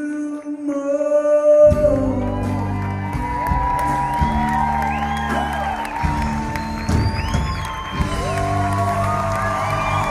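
Live band music in a hall: a held note, then the full band comes in about two seconds in. Audience whoops and cheers over the music.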